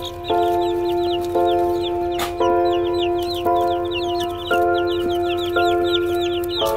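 A flock of chicks peeping constantly: rapid, high, falling cheeps, many each second. Background music plays under them, with a new note or chord about once a second.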